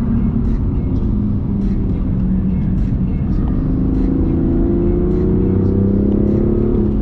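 BMW M2 CS's twin-turbo 3.0-litre straight-six heard from inside the cabin. Its pitch sinks over the first couple of seconds, then climbs steadily under acceleration and drops back sharply near the end, an upshift.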